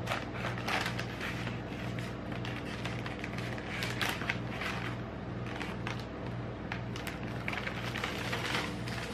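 Plastic snack bag crinkling and rustling as it is torn open and handled, with individually wrapped chocolate bars shaken out onto a steel cold plate near the end. A steady low hum runs underneath.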